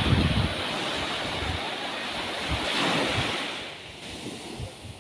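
Small sea waves breaking and washing up a sandy shore. The wash swells about three seconds in, then fades, with wind buffeting the microphone at the start.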